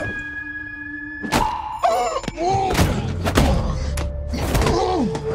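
Film fight sound effects: a run of sharp thuds and impact hits, starting about a second in, over a music score with held tones.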